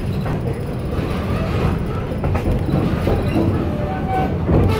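Steady low rumble of a heritage-railroad passenger coach rolling along the track, heard from inside the car.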